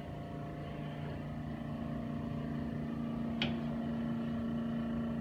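Steady machine hum with a low tone that sets in about half a second in, and a single sharp click about three and a half seconds in.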